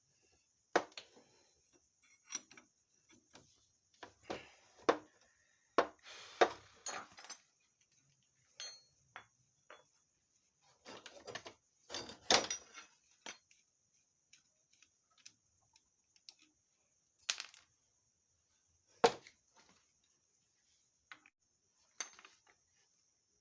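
Irregular metallic clinks and knocks of hand tools and loose engine parts being handled during motorcycle engine disassembly, a dozen or so sharp hits at uneven intervals with quiet gaps between.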